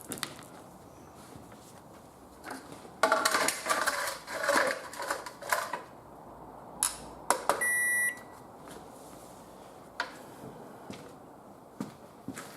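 Clattering handling noise on a microwave oven, then a couple of sharp clicks and a single half-second beep from its control panel. Another click follows a couple of seconds later.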